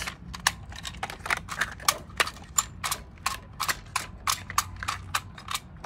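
Sharp plastic clicks, about three or four a second at an uneven pace, as the jointed legs and body of a vintage AT-ST (Scout Walker) toy are worked by hand.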